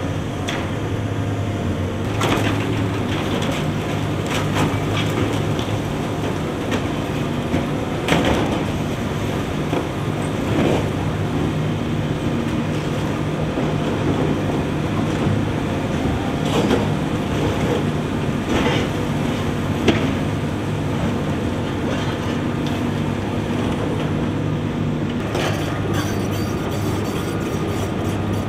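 Diesel engines of tracked hydraulic demolition excavators running steadily. Scattered cracks and crashes of breaking building debris come through at irregular times, the sharpest about two-thirds of the way in.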